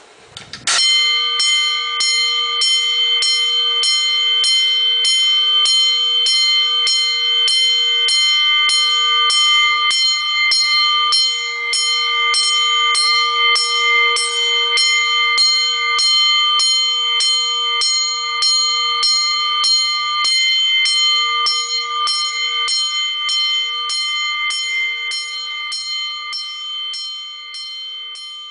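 8-inch single-stroke Autocall fire alarm bell sounding the fire alarm, struck over and over in a quick, even rhythm so each stroke rings into the next. It starts about a second in and grows somewhat quieter in the last few seconds.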